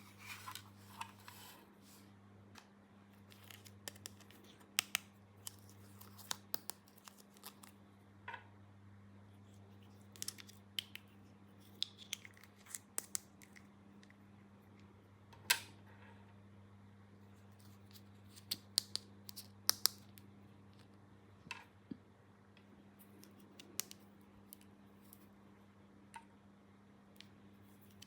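Faint, scattered light clicks and taps of small plastic toy pieces being handled, some in quick clusters and a few ringing briefly, over a steady low hum.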